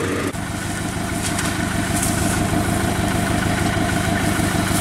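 Engine of a small tracked rice-hauling tractor idling steadily, with an even low pulse from its firing, dipping briefly just after the start.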